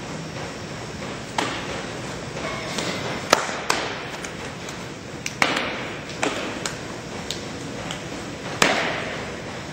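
Softball smacking into leather gloves, a series of sharp pops about seven times, each ringing on in a large gym as pitches are caught and the ball is thrown back.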